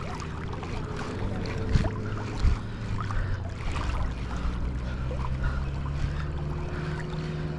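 Sea water sloshing and lapping around a wading angler, with wind buffeting the microphone and a low steady hum underneath, plus a few small ticks.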